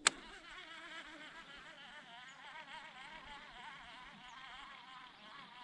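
A fly or similar biting insect buzzing close to the microphone, its drone wavering up and down in pitch, after a single sharp click right at the start.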